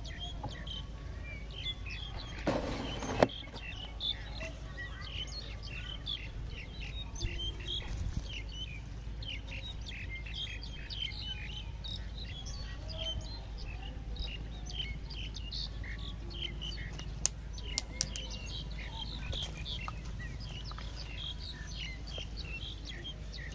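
Many small birds chirping busily and without a break. About three seconds in there is a short rustling scrape ending in a knock, and a few sharp clicks come later on.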